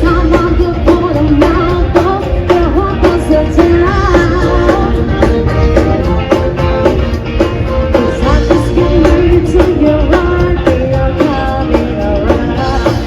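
Upbeat rock music with a singer over drums and guitar, with a steady beat.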